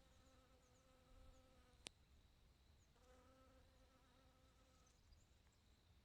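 Faint buzz of a bee's wings as it flies among flowers: a steady hum for the first couple of seconds, broken off by a single sharp click, then resuming for about two seconds before fading.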